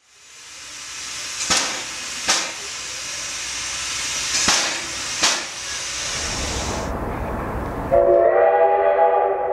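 LV-class steam locomotive hissing loudly as steam vents, with four sharp loud beats in two pairs. About eight seconds in, a steady whistle of several notes at once begins.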